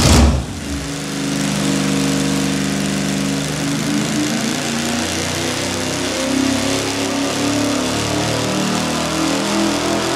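383 cubic-inch small-block Chevy V8 with a tunnel-ram intake and dual four-barrel carburettors running at wide-open throttle on an engine dyno. The revs climb steadily through a power pull, from about 3000 toward 4700 rpm.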